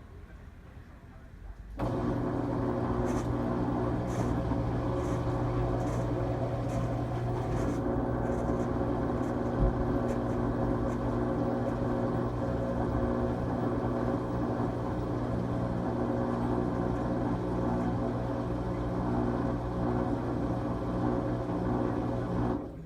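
LG Tromm WD-CR101C front-loading drum washing machine running in its quick-wash cycle: a steady motor-or-pump hum that switches on about two seconds in and cuts off abruptly just before the end.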